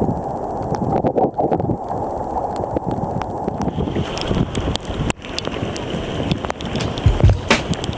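A muffled, rushing noise of wind and water on the microphone, with scattered knocks and clicks.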